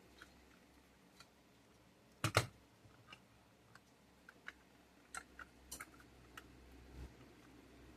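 Light scattered clicks and taps of small tools and plastic parts being handled while a model diesel locomotive is taken apart, with a sharper double click about two seconds in and a quick run of small ticks near the middle.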